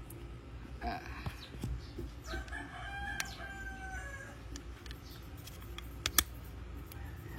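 A held animal call in the background, starting about two seconds in and lasting about two seconds, its pitch dropping at the end. A few sharp clicks of plastic pieces follow near the end.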